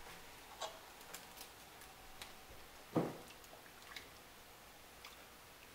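Faint, scattered light clicks and taps of a whisk working in a stainless steel pot, with one louder knock about three seconds in.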